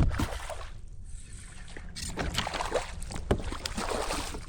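Water splashing and sloshing at a kayak's side as a small speckled trout is landed, in two bouts, a short one at the start and a longer one about two seconds in. A sharp knock opens it.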